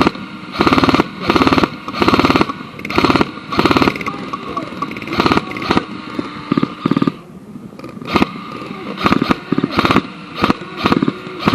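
Electric airsoft guns firing short full-auto bursts of about half a second each, one after another, each a rapid buzzing rattle of shots; after a short lull about seven seconds in, quicker single shots and short strings follow.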